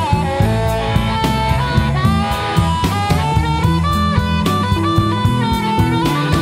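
Electric blues band playing an instrumental break: a bending harmonica lead over drums, bass and guitar.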